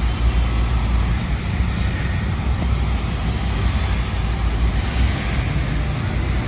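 Steady low rumble of a bus's engine and tyres, heard from inside the moving bus, with the surrounding road traffic around it.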